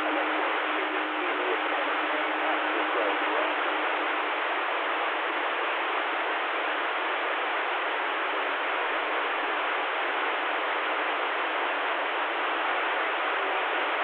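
CB radio receiver hiss with the squelch open between transmissions: a steady, even static through the radio's narrow audio band, with a faint steady tone under it for the first few seconds.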